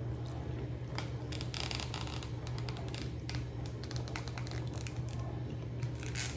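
Rapid irregular clicks and crinkles of food being eaten from its packaging: utensil taps and rustling containers, heard over a steady low hum.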